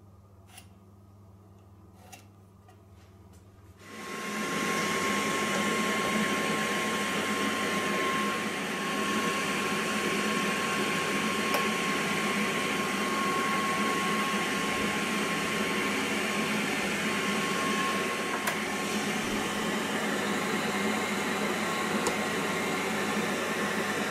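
A few faint clicks, then about four seconds in an electric motor comes on and runs steadily with a constant whine.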